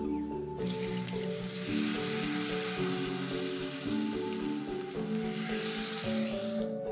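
Batter poured into hot cooking oil in an aluminium wok, sizzling loudly as it starts to fry. The sizzle starts suddenly about half a second in and cuts off just before the end, over background music.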